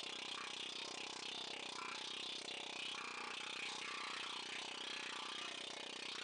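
Air-powered planishing hammer running steadily, its die pecking rapidly against a sheet-metal motorcycle fender as the panel is worked under it. This planishes the shrunk area to smooth the transition.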